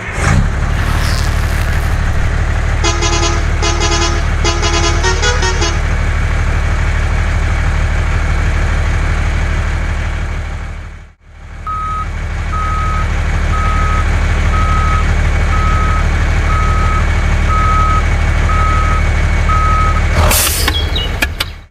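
Truck engine running steadily. A multi-tone horn honks four quick times a few seconds in. After a brief fade, a reversing alarm beeps about once a second for several seconds.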